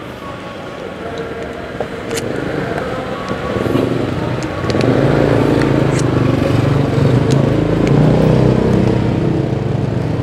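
A motor vehicle's engine running close by, growing louder about four to five seconds in and then holding steady.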